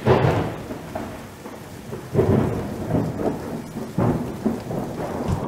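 Thunderstorm sound effect: thunder claps over steady rain, with a loud crack at the start and more rolling thunder about two and four seconds in.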